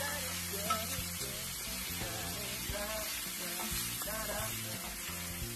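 Diced pork belly and onion sizzling as they fry in an enamelled cast-iron skillet, stirred now and then, with a steady hiss. Background music plays underneath.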